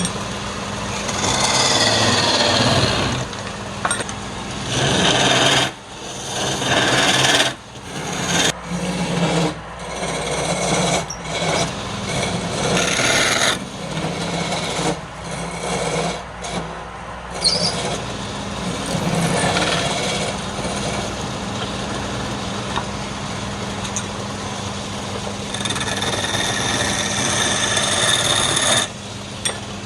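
Wood lathe running with a steady hum while a tool or abrasive rubs and scrapes against the spinning wood in repeated passes, broken by many short pauses.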